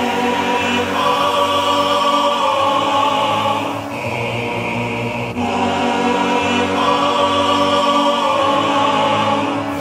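Music with long held chords.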